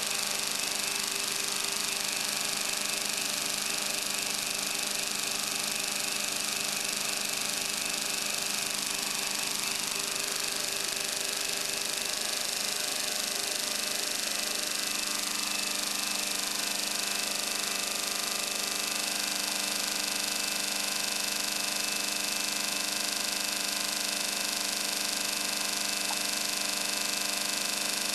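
Steady whir and hum of the counter-rotating CR-Kromrey converter's motor-driven rotors spinning. Its tone shifts slightly about halfway through and then holds steady.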